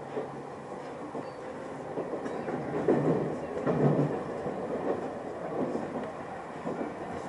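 Local passenger train running along the track, heard from inside the carriage: a steady rumble with the wheels knocking over rail joints, and two louder knocks around the middle.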